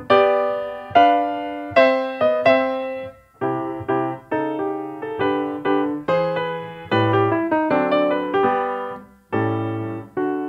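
Background piano music: a melody of struck notes over lower bass notes, each note starting sharply and fading away.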